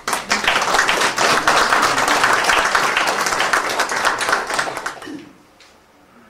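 Applause from a small seated audience, many hands clapping together for about five seconds before dying away.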